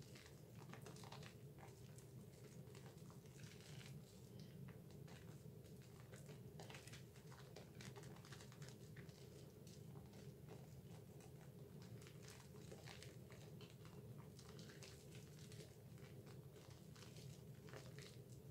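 Faint, irregular squishing and crackling of a thick mass of Dove bar soap lather being kneaded and rubbed between wet hands, over a steady low hum.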